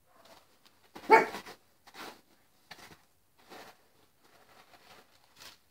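Dog barking: one loud bark about a second in, then several quieter short sounds.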